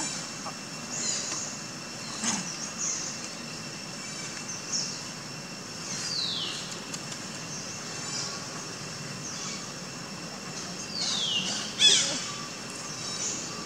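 Outdoor ambience: a faint steady high-pitched drone, a few short sharp sounds, and two high calls that slide downward, about six and eleven seconds in.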